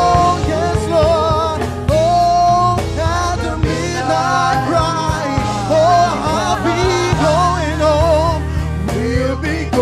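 A gospel song: a voice sings long, wavering runs with vibrato over a band, with a steady bass underneath.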